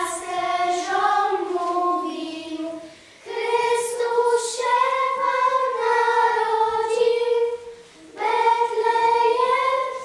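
A children's choir singing a Christmas carol in long held phrases, with short breaks between phrases about three and eight seconds in.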